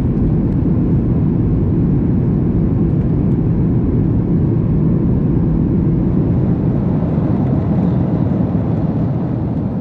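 Steady, low cabin noise of a Boeing 737 MAX in flight: the hum of its CFM LEAP-1B jet engines and the rush of air past the fuselage, heard inside the passenger cabin.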